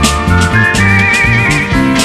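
Instrumental break of a pop song: drums and bass keep a steady beat, and a high lead melody with a pronounced vibrato comes in about half a second in.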